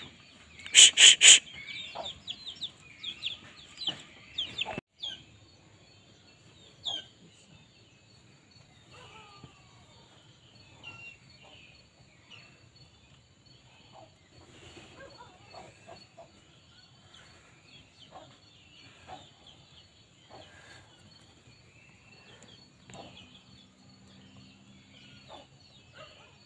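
Birds calling in early-morning mountain forest: a few loud short calls about a second in, then scattered faint chirps over a steady high insect whine after the sound falls quieter at about five seconds.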